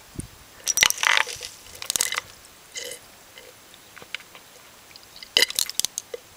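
Rubber bulb of a battery hydrometer being squeezed and released, drawing up and squirting back lead-acid battery electrolyte: clusters of small clicks and liquid squishes about a second in, around two seconds in and again near the end.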